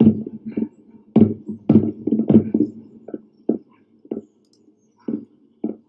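Distant anti-aircraft fire: an irregular series of about ten dull booms, closest together in the first couple of seconds and thinning out after that.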